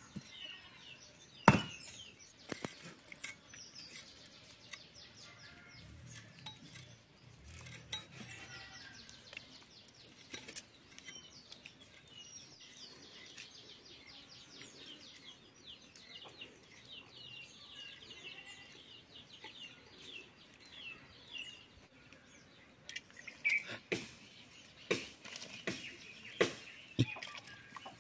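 Chicken being chopped with curved iron hand blades on a wooden log: irregular sharp chops and clinks of blade on wood, one loud strike about a second and a half in and a quick run of chops near the end. Birds chirp behind it throughout.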